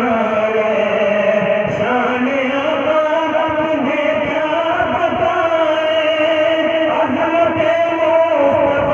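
A man reciting a naat, an Urdu devotional poem, in a sustained chanting voice with long held notes that waver in pitch, amplified through a microphone.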